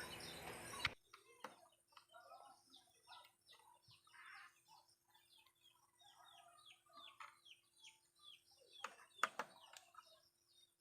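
Faint bird chirping: many short, high chirps, each falling in pitch, over a faint steady hum, with a couple of clicks near the end.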